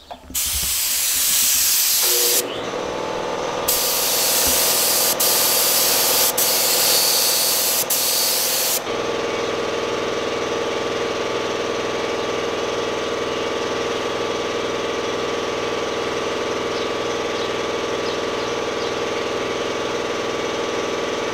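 Air-fed paint spray gun hissing loudly as primer is sprayed onto a bus, with a short pause about two and a half seconds in. About nine seconds in the hiss stops, leaving a steady machine hum of several even tones.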